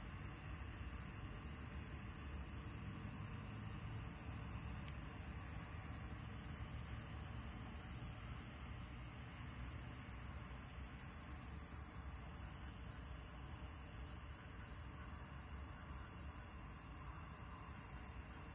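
An insect calling steadily in the night, a high, even pulsing trill that keeps repeating without a break. A low rumble runs underneath.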